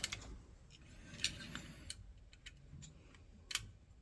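Light, irregular clicks and taps, about eight, from small plastic and metal parts of a motorised valve head being handled and worked apart.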